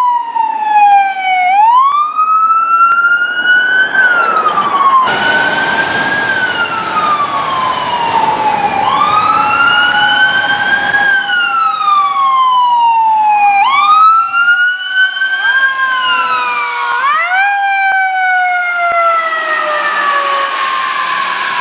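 Emergency-vehicle sirens wailing on passing rescue trucks. The pitch sweeps up and then falls away every two to four seconds over a rush of road noise, and in the second half two sirens sound at once, out of step.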